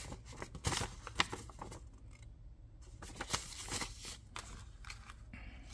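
Quiet rustling and scattered small clicks as paper directions, small plastic bags and parts are handled while unpacking a fire starter kit.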